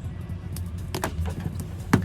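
Background music, with a few sharp clicks and taps over it; the loudest comes near the end.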